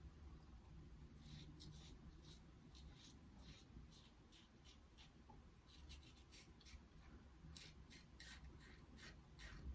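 Faint short scrapes of a Schick razor cutting stubble through shaving lather, one quick stroke after another in irregular runs.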